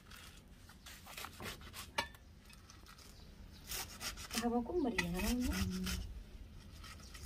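Chopped mustard greens rustling and scraping against a steel plate as handfuls are pushed off it, in uneven strokes that are heaviest past the middle. A short voice sounds over the loudest stretch.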